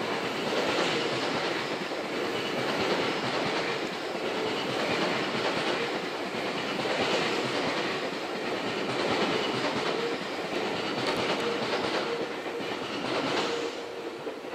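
Seibu Railway electric train running through the station, a steady rumble of wheels on rails with some clacking over rail joints.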